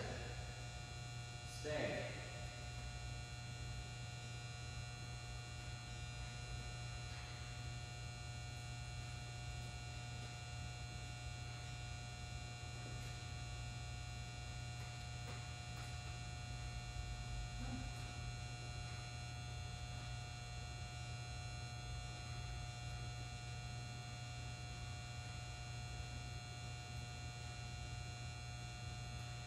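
Steady room hum: a low drone with several fixed higher tones, the background hum of a large gymnasium's building systems. A brief louder sound cuts through it about two seconds in.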